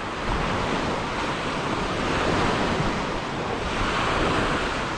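Small surf breaking and washing up a sandy beach, with wind rumbling on the microphone; the wash swells a little near the end.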